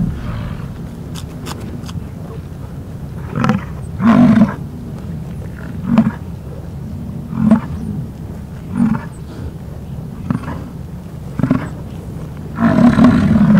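American bison bull bellowing in the rut: a series of about eight short, deep bellows, the last and longest near the end, over a continuous low rumble.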